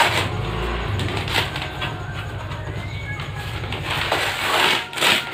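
Gift wrapping paper rustling and crinkling as a present is handled and unwrapped, with a few sharper crackles, over a steady low background hum.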